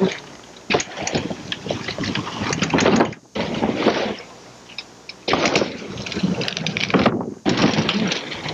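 BMX bike tyres rolling on a wooden quarter-pipe ramp, a rushing rumble in several stretches broken by sudden cuts, with wind on the microphone.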